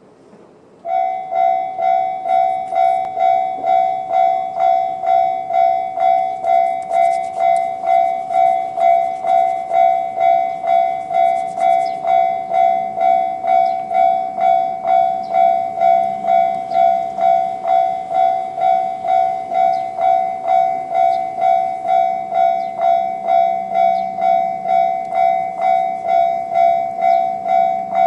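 Japanese railway level-crossing electronic warning bell, in the JR standard tone, starting about a second in and then ringing steadily at about two strokes a second.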